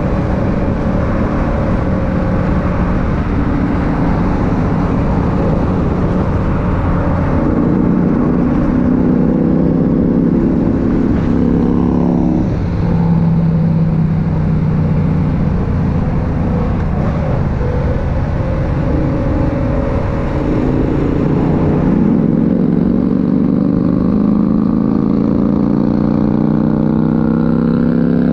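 Motorcycle engine running at highway speed, heard from on board the bike, climbing in pitch twice as it accelerates, with wind rumbling on the microphone.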